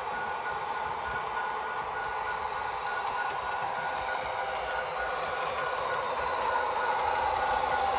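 Sound-equipped HO-scale GP40-2 model diesel locomotive running, its Tsunami 2 decoder playing a diesel engine through the model's small speaker, with a regular pulsing high tone. The sound grows louder over the last few seconds.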